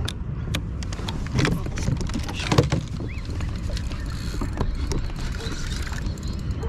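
Sharp knocks and taps of fishing tackle against a plastic kayak, the loudest about two and a half seconds in, over a steady low rumble. From about four seconds in, a spinning reel is wound in with a faint whir.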